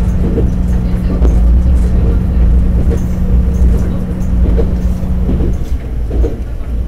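Diesel railcar running along the track: a heavy low engine and wheel rumble, with a steady hum that drops away about two-thirds through, and occasional clicks of the wheels over rail joints.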